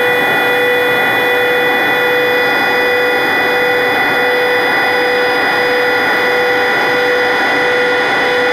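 Jet airliner engines running at a steady power: a loud, even rush with a steady high whine and several fixed tones above it.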